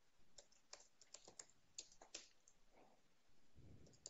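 Faint typing on a computer keyboard: about a dozen quiet key clicks at an uneven pace.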